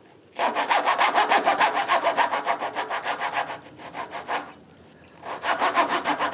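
Coping saw cutting Queensland maple in quick, rapid strokes, removing the waste between through-dovetails. The sawing starts about half a second in, pauses briefly after about four seconds, then resumes.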